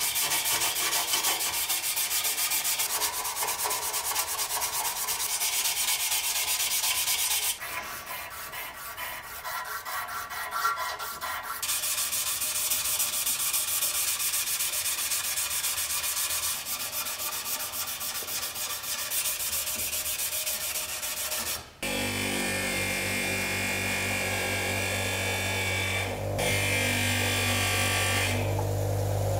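Green abrasive pad scrubbed rapidly back and forth over a brass camping-stove base, a dry scratchy rubbing. About 22 seconds in it changes to a bench polisher's buffing wheel running with a steady motor hum as the brass piece is held against it.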